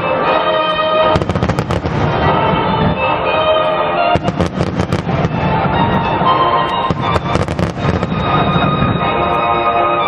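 Aerial fireworks crackling in three volleys of rapid sharp pops, about one, four and seven seconds in, over steady background music with sustained tones.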